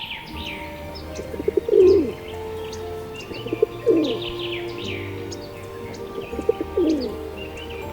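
Pigeons cooing: a low, falling coo about every two to three seconds, with small birds chirping high over it.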